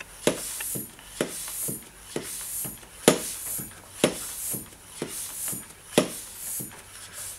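Bicycle floor pump worked by hand in quick regular strokes, about two a second, each with a knock and a hiss of air. It is pumping up the AR8 Pro lance's air tank through its Schrader valve, toward 4 bar.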